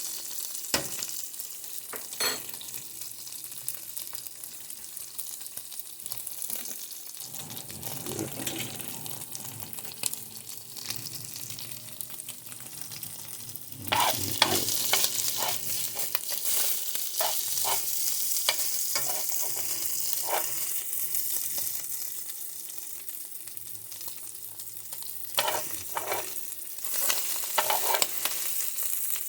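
Beef rib scraps in barbecue sauce sizzling in a frying pan as they caramelize. A utensil now and then clicks and scrapes against the pan, more busily from about halfway through.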